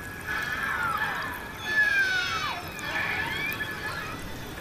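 Killer whales calling underwater: several overlapping whistles, a held tone with sliding whistles over it. The loudest is a long falling whistle about two seconds in, with a shorter rising one a second later.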